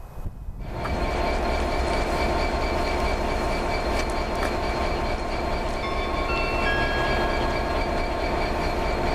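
LMS Black Five 4-6-0 steam locomotive No. 44932 moving slowly with its train, a steady rush of running noise that comes up just under a second in. Thin high squeals from the wheels come in a little past halfway.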